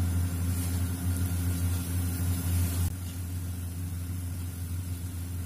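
Cumin seeds sizzling with a fine hiss in hot oil in a wok, under a louder steady low motor hum. Both drop a little about three seconds in.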